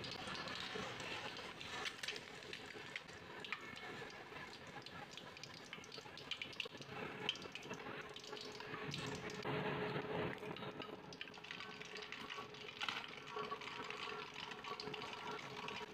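Hot oil sizzling and crackling in a wok as eggs deep-fry, a steady hiss full of small pops. About halfway through a fresh egg goes into the oil and the sizzle swells.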